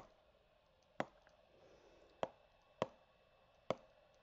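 Stylus tip tapping on a touchscreen while handwriting: five sharp, short clicks at irregular intervals of roughly a second, over faint room hiss.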